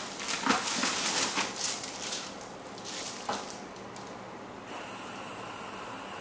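Packaging being rustled and crinkled by hand while items are pulled out of a shipping box, busiest in the first two seconds, then a few lighter handling noises before it settles to a faint steady hiss.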